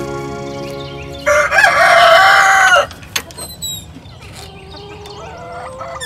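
A rooster crows once, loud, for about a second and a half, as the tail of soft background music fades out. Quieter chicken calls follow near the end.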